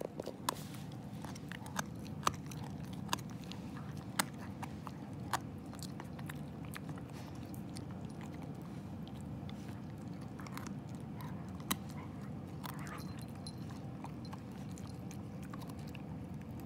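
Akita dog gnawing on a chew stick held between its paws, with sharp crunching clicks from its teeth, several in the first few seconds and one more past the middle.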